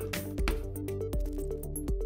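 Background music with a steady beat, held notes and a bass line.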